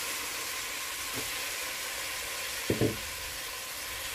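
Sliced onions frying in ghee and oil in a pan with a steady sizzle, and two quick knocks about three seconds in.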